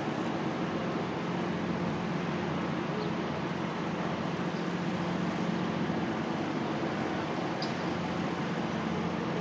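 Steady hum of jet aircraft engines at an airport, running evenly with a low drone over a wash of noise and no change in pitch.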